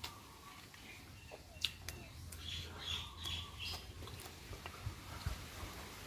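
Close-up eating sounds: chewing and crunching of fresh raw vegetables and grilled pork, with a scatter of sharp clicks and a short, low murmur of voice around the middle.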